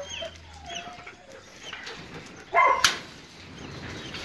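Hunting hounds in kennel pens whining faintly, with one short, loud bark about two and a half seconds in.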